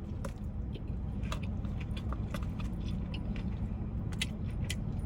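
Close-miked eating sounds: short sharp mouth clicks from chewing, about one a second, over a steady low rumble.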